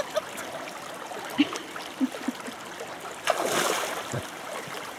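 Shallow creek water running over rocks, with a sloshing splash a little over three seconds in as a person wades and shifts his feet in the stream.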